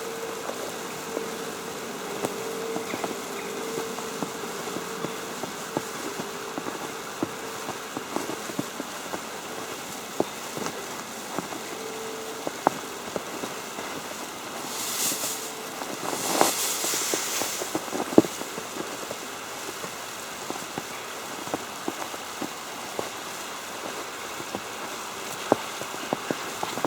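Falling snow ticking irregularly on an umbrella canopy over a steady hiss, with two brief louder rustling bursts about halfway through.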